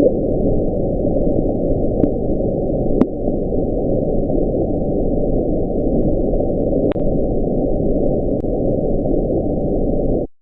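Sped-up hydrophone recording of the 'Bloop', the mysterious underwater sound caught off Chile in the 1990s: a steady low rushing noise with a few faint clicks, cutting off abruptly near the end. The sound is currently attributed to ice calving, though this is not confirmed.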